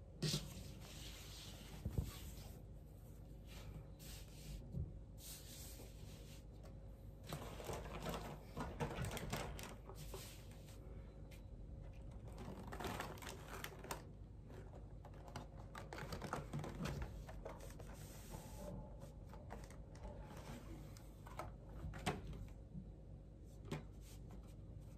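Quiet handling sounds: a cloth tea towel being smoothed out and a cardboard pie box being handled and opened, with soft rustles in several short spells and a few light taps and clicks.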